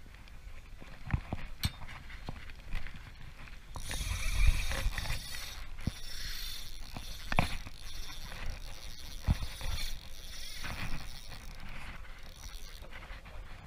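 Nasci 1000 spinning reel being cranked to retrieve line. A steady mechanical whir from the gears runs from about four seconds in until near the end, with scattered sharp clicks and knocks from handling the rod and reel.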